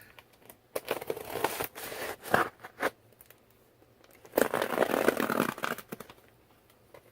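Packing tape being torn off a cardboard shipping box, in two long rips with a pause between.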